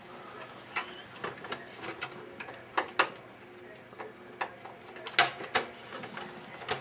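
Scattered plastic clicks and scrapes as the Xbox 360's snap-on side grille is worked loose, its clips pushed in through the holes with a small tool. The loudest click comes about five seconds in.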